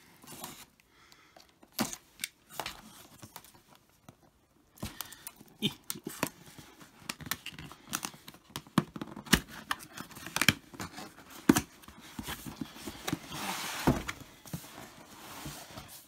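Unsealing a cardboard product box: a small knife slitting the seal, fingers picking and peeling off the seal tape, and the box being opened, giving scattered clicks, scrapes and tearing, with a longer scraping rustle near the end.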